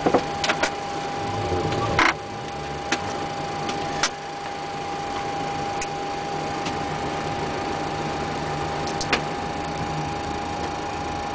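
Steady hum and hiss of a Boeing 737-400 flight deck with a constant high tone running through it, broken by a few sharp clicks, the loudest about two seconds in.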